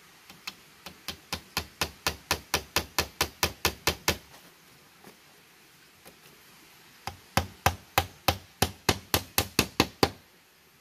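Claw hammer striking bamboo slats in two quick runs of blows, about four a second, each run getting louder at first, with a pause of about three seconds between.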